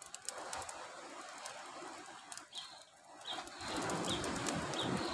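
A bird calling: a short, high chirp repeated about once every second from about halfway in. Beneath it is a rushing noise that swells louder a little past the middle.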